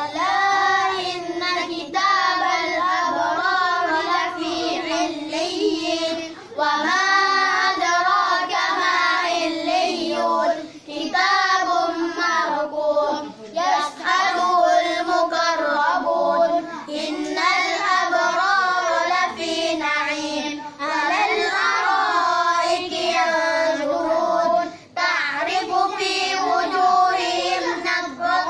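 A child's voice chanting Quran recitation in a melodic, drawn-out style, long phrases broken by short pauses for breath.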